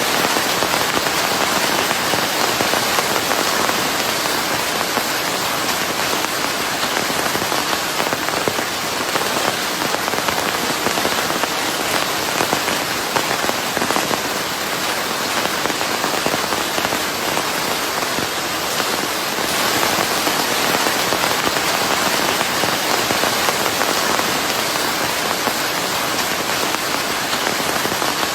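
Steady rain falling on a hard surface: a dense, even hiss with fine crackling spatter, blended with white noise, unchanging throughout.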